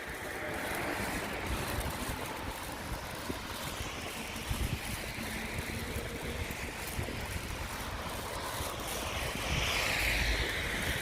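Outdoor street noise while cycling: wind rumbling on the microphone, and a hiss that swells early on and again, louder, near the end, like traffic passing on a wet road.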